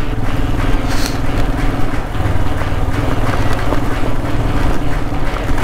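Royal Enfield Himalayan's single-cylinder engine running at a steady pace while the motorcycle rides over a loose gravel road, with an even noise of tyres and wind over the engine note.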